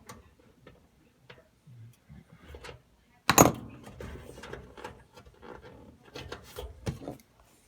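Clicks and metal-and-plastic handling clatter from working with a ratchet and socket on the screw holding a dryer's thermal fuse. One loud clatter comes about three seconds in, followed by more scattered clicks and rattles.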